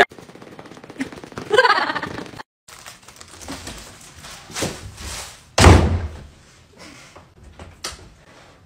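A door shutting with a single heavy thud a little past halfway, among a few lighter knocks.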